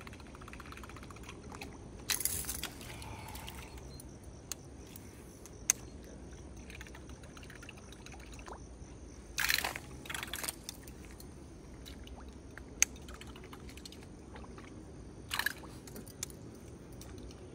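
Short loud water splashes on the surface of a weed-covered pond: about two seconds in, a pair between nine and a half and ten and a half seconds, and another near fifteen seconds. These are traíra (wolf fish) striking at a surface lure as it is retrieved. Two sharp clicks fall between the splashes.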